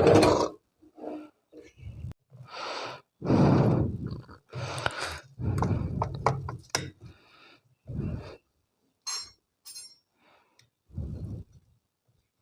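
A spoon scraping and knocking against a cooking pot and plate as thick, hot harissa is dished out: a string of short, irregular scrapes, with a few bright metallic clinks about nine seconds in.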